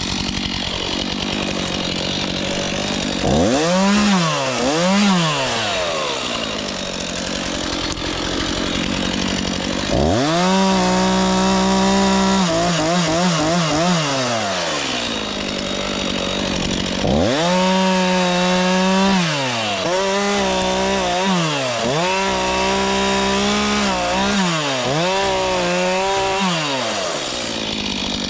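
Gasoline chainsaw idling and revved up to full throttle again and again while cutting, with the longest runs about ten and seventeen seconds in. The pitch sags under load in the cut and drops back to idle between bursts.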